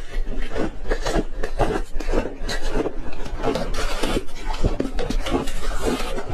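Ice being crunched and chewed in the mouth close to the microphone: a dense, continuous run of sharp crunches.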